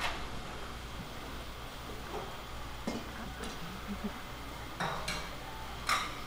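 Metal tongs and stainless steel bowls clinking and knocking a few times as vegetables are piled into a bowl for bibimbap, mostly in the second half, over a steady low hum.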